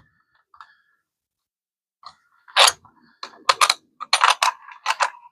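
A hand tool clicking in a quick, uneven run of sharp clicks as a fastener on a Honda VTX 1300C is tightened, starting about two seconds in.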